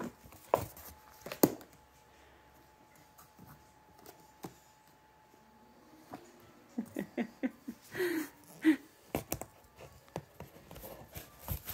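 Books being handled and lifted out of a cardboard box: a couple of light knocks early on, then a quiet stretch, then a cluster of short knocks and handling sounds a little past the middle.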